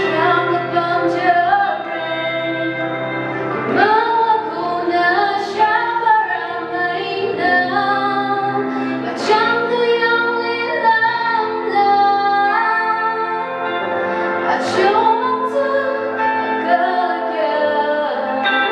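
A young woman singing solo into a microphone, her voice moving between long held notes, over steady low accompanying notes held beneath.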